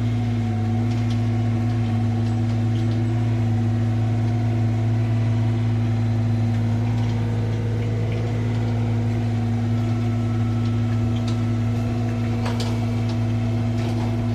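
Mini excavator's diesel engine running at a steady pitch as the machine tracks along, with a few light clicks near the end.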